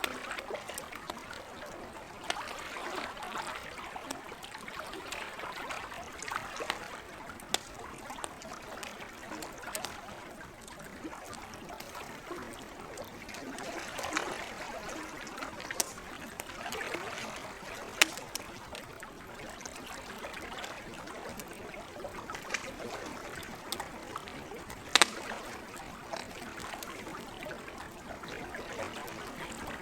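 Campfire crackling, with scattered sharp pops from the burning wood, a few of them much louder than the rest. Under it, lake water laps and trickles in a steady, gently swelling wash.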